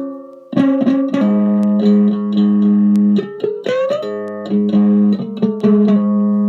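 Homemade electric one-string diddley bow, played clean through a small transistor preamp and amp with no effects: the string is plucked over and over on a low note, with a sliding rise in pitch about three seconds in.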